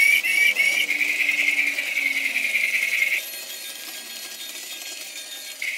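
Knockoff battery-operated Thomas toy train running around a plastic track, its wheels and motor making a steady light rattle. The rattle drops quieter about three seconds in and picks back up near the end.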